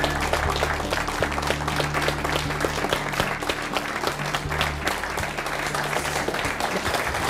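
Studio audience applauding, with theme music holding steady low notes underneath.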